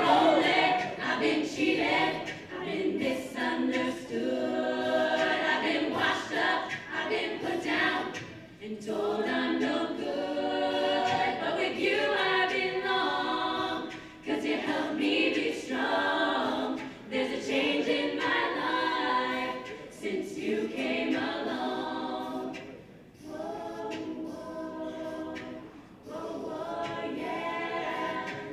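All-female a cappella group singing in close harmony, voices only, with a female soloist leading over the group's backing chords; the chords break briefly between phrases every few seconds.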